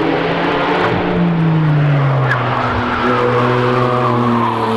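Porsche 911 sports car's flat-six engine running at speed on a race track. Its pitch falls between about one and two seconds in, then holds steady.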